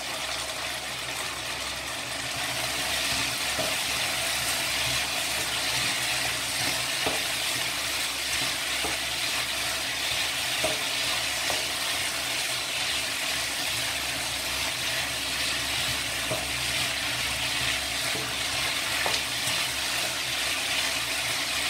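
Shredded chicken and zha cai (preserved mustard stem) stir-frying in a wok: a steady sizzle, with a spatula scraping and lightly tapping the pan now and then.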